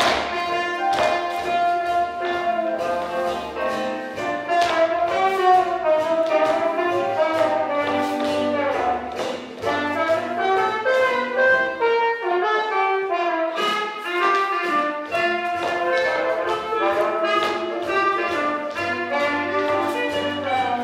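Swing jazz recording led by brass horns over a steady beat; the bass and drums stop for a short break a little past halfway, then the band comes back in.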